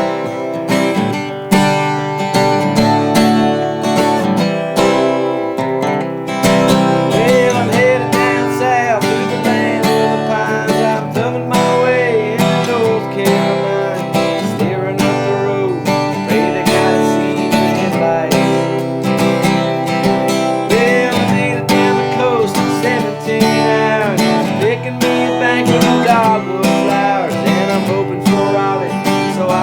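Country-style acoustic guitar music, strummed, with a melody line of bending notes over it.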